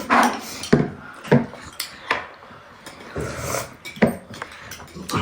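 Scattered clinks and knocks of cutlery and dishes during a meal, about half a dozen sharp strikes spread over a few seconds.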